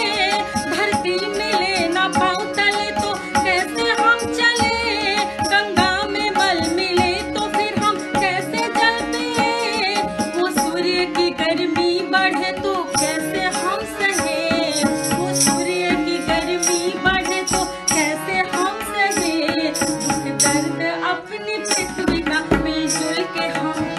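A woman singing a Hindi folk song over instrumental accompaniment with hand-drum percussion. The percussion strikes come through more plainly in the middle of the passage.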